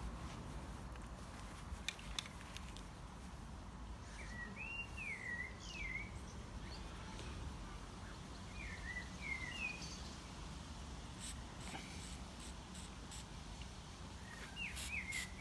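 A bird chirping in short up-and-down phrases, three or four times, over steady low outdoor background noise, with a few faint clicks near the end.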